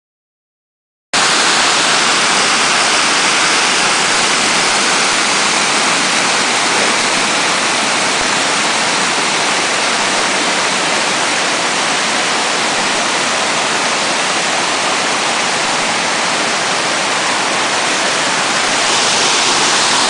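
Steady rush of a waterfall and cascading creek running high after several inches of rain; it starts abruptly about a second in.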